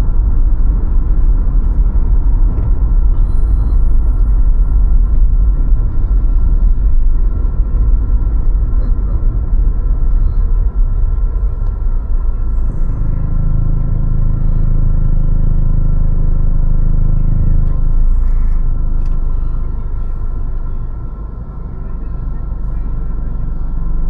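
Car driving: steady low road and engine rumble. About halfway through, a deeper hum comes in for about five seconds, and the rumble eases briefly near the end.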